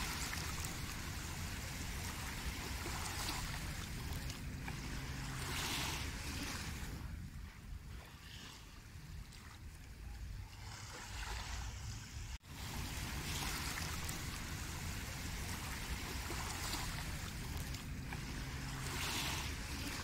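Small sea waves lapping and washing up onto a sandy beach, the hiss swelling each time a wave runs up the shore, over a steady low rumble. The sound cuts out for an instant about twelve seconds in.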